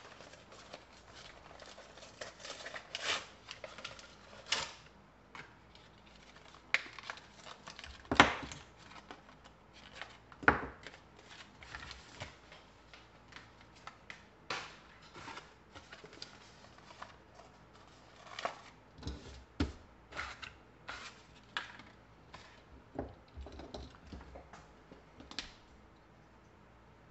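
Rustling, crinkling and tearing of the blister-card packaging of a JB Weld KwikWeld two-part epoxy as it is opened and its tubes taken out, with irregular small clicks and two louder knocks about eight and ten seconds in.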